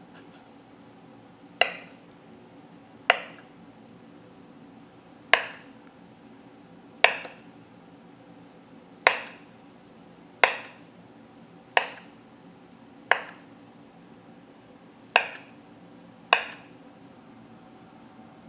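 A knife chopping down onto a cutting board: about ten separate sharp chops, one to two seconds apart, each with a brief ring.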